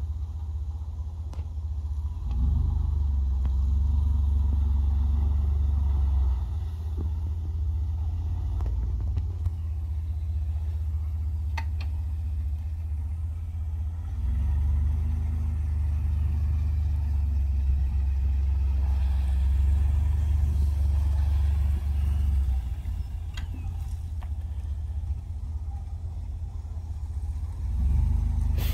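Compact pickup truck engine running as the truck drives slowly across grass and dirt, a steady low rumble that grows louder for a few seconds about two seconds in, again for several seconds from about the middle, and once more near the end.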